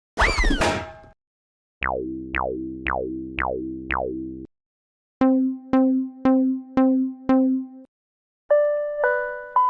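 A string of synthesized cartoon sound effects: a bouncy rising-and-falling boing at the start, then five quick falling zaps over a held chord, then five evenly spaced plucked notes about half a second apart, and near the end a two-note chime alternating high and low.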